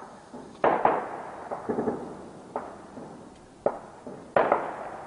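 Gunfire echoing across a neighbourhood: about ten irregular single shots and short clusters over five seconds, each crack followed by a ringing echo.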